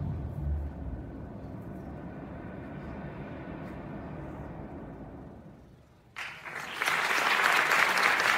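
Music fades away to almost nothing. About six seconds in, an audience suddenly breaks into applause, which grows louder.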